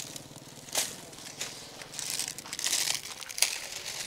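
Dry leaves and twigs crinkling and crackling in irregular bursts, densest about two to three seconds in.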